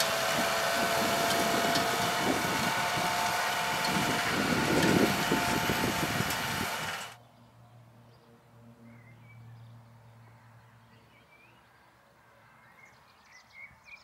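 Fendt 720 Vario tractor's diesel engine running under load as it pulls a four-furrow reversible plough past close by, with a steady whine over the engine noise. About seven seconds in it cuts off suddenly to a faint low hum of the tractor working far off, with birds chirping.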